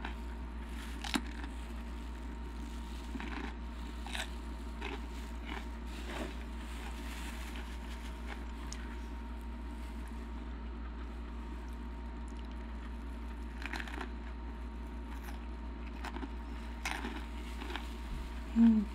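Close-up crunching and chewing of jalapeño peppers stuffed with cream cheese and rolled Takis chips: scattered sharp crunches over a steady low hum. Near the end there is a brief, louder low-pitched sound.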